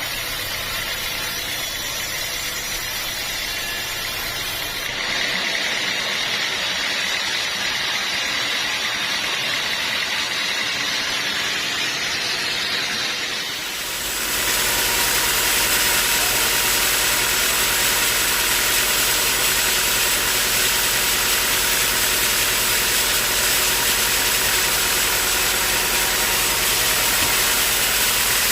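Sawmill machinery running steadily, with abrupt changes in sound about five seconds and fourteen seconds in; after the second change it is louder, with a dense hiss over a steady hum.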